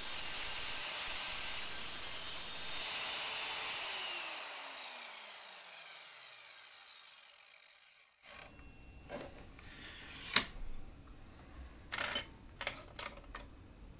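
Evolution R185SMS sliding mitre saw running, then switched off after cutting through a thin metal profile; its blade spins down with a falling whine over about four seconds. After a brief silence come scattered clicks and knocks as the saw head is raised and the cut piece is handled.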